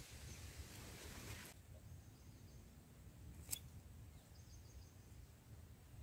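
Near silence: faint outdoor ambience with a low rumble and a light hiss that drops away about a second and a half in. A single sharp click comes about three and a half seconds in, and a few faint, very high chirps follow about a second later.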